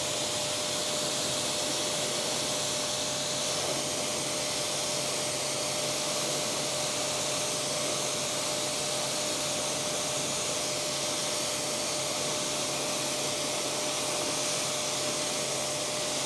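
Kranzle 1152 TST pressure washer running with the trigger held: a steady hiss of water jetting from the lance, over a steady hum, as a wheel mitt is rinsed clean in the spray.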